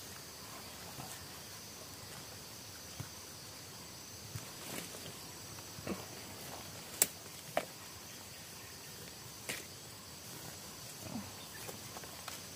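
Quiet woodland ambience: a steady high insect buzz, with scattered rustles and short sharp clicks, the loudest a snap about seven seconds in.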